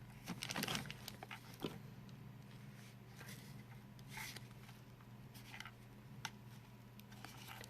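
Faint handling noise from the camcorder and its packaging: scattered light clicks and rustles over a steady low hum.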